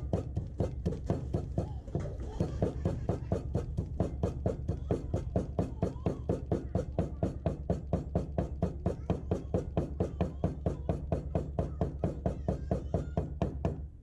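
Heavy cleaver mincing food on a thick round wooden chopping board: rapid, even chops about four a second.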